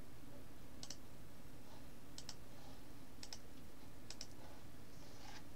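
Computer mouse buttons clicking, about six short clicks, several in quick pairs, spread through the few seconds over a steady faint background hum.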